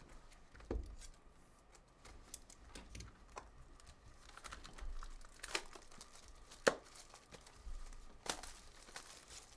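Trading-card pack wrappers being torn open and crinkled, with scattered sharp clicks and rustles.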